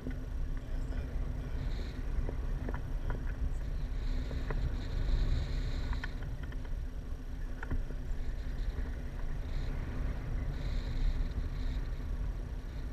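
Wind buffeting the microphone of a camera on a tandem paraglider in flight: a steady low rumble, with a few faint clicks.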